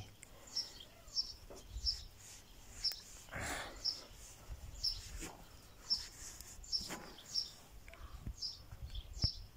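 A small bird chirping, short high chirps repeated roughly once a second, with a brief rustle and a few light clicks from handling in between.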